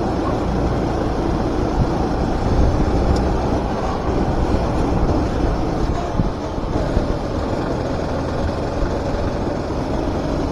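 Four-stroke rental kart engine running at racing speed, heard onboard, a loud steady drone with its pitch shifting slightly.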